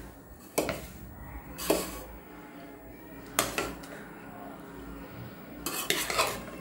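Slotted steel ladle scooping cooked rice and clanking against the rim and sides of a metal bowl: a few sharp clanks, the last two close together near the end.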